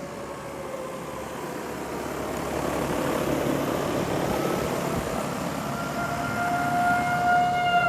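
Federal Signal 2001 outdoor warning siren sounding its steady tone: it sags in pitch and fades early on, then rises and grows loud again near the end as the rotating horn swings back round. A rushing noise swells underneath in the middle.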